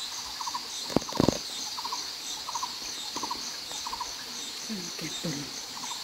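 Forest ambience: a steady, pulsing high-pitched insect chorus, with a short three-note call repeating about every two-thirds of a second. Two sharp knocks come about a second in, and a few brief falling calls near the end.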